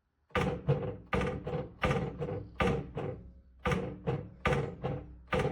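Music starting a fraction of a second in: a rhythmic run of struck, ringing notes, about two to three a second, over a held pitched tone.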